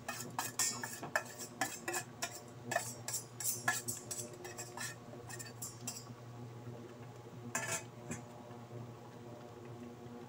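Metal kitchenware clinking against a stainless steel cooking pot: a quick, irregular string of sharp clicks for about six seconds, then a short cluster near eight seconds. Under it runs the steady low hum of an induction cooktop at work.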